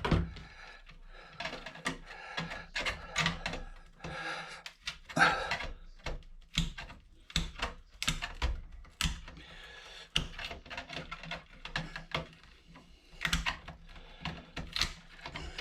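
A small hand tool working on a computer motherboard as components are pried off: irregular sharp clicks and light knocks with short scraping sounds between them.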